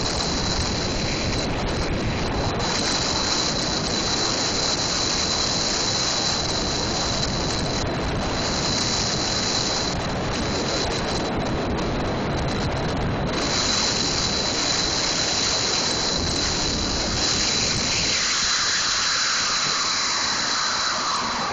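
Street luge urethane wheels rolling fast on asphalt, with wind rushing past: a steady rough roar. Near the end the roar thins out and slides down in pitch as the luge slows.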